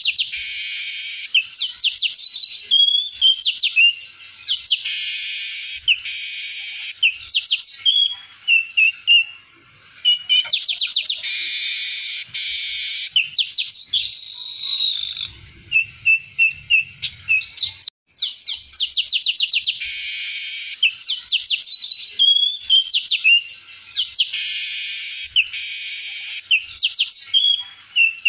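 Male streaked weaver singing: its song of fast ticking chatter, long harsh buzzes and short sliding chirps, repeated phrase after phrase with only brief pauses.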